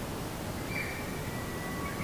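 Steady outdoor background noise with a bird's thin, level whistled note coming in about a third of the way through and held for about a second, with a fainter lower note beneath it.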